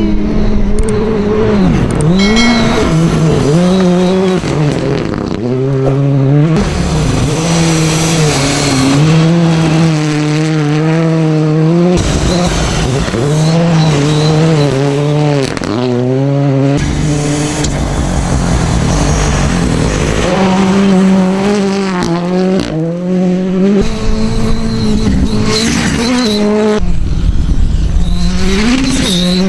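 Rally car engines at high revs on a gravel stage, the revs climbing and dropping again and again as the cars change gear and pass by.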